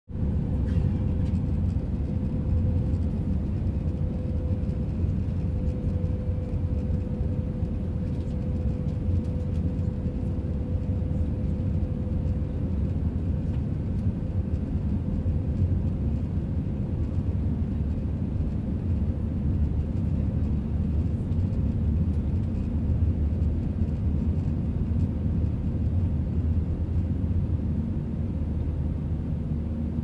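Airbus airliner in flight: a steady, low jet-engine drone at an even level, with a faint humming tone in it that fades about halfway through.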